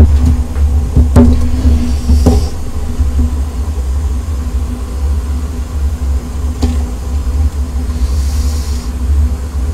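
Steady low rumble of portable butane gas burners under large pots of boiling ramen. A metal ladle knocks sharply against the pan a few times as the noodles are stirred, about a second and two seconds in and again later, and a brief hiss comes near the end.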